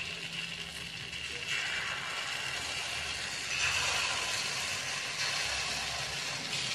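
Kue lumpur batter sizzling as it is poured into the cups of a hot aluminium mold on a gas stove. It makes a steady hiss that grows louder about a second and a half in, and again about halfway through.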